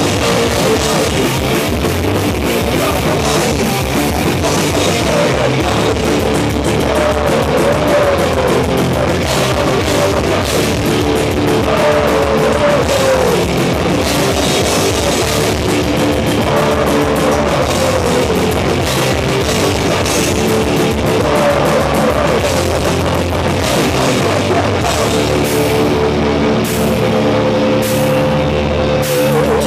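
Loud live heavy rock band playing, with distorted electric guitars, bass guitar and a drum kit.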